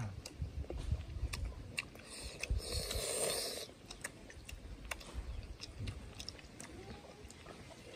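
Close-miked chewing and mouth sounds of people eating pork with their hands, with many small wet clicks and lip smacks. About two seconds in comes a breathy hiss of breath lasting over a second.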